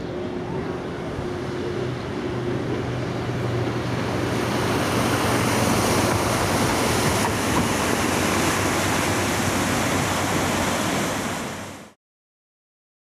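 A loaded river container barge passing beneath: a low, steady engine hum under a rushing noise that grows louder as the stern and wheelhouse come below. The sound fades out quickly near the end.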